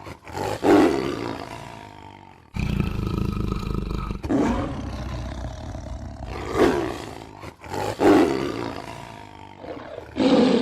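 Lion roaring: a series of deep roars and grunts, spaced a second or two apart, each starting loud and trailing off. A steady low rumble comes in for a second or so between the early calls.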